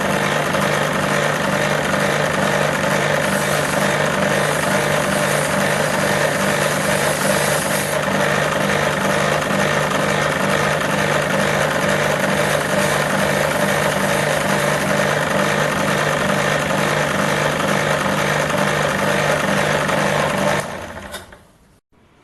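Metal lathe running steadily, a higher hiss added for a few seconds early on; it is switched off near the end and runs down to quiet.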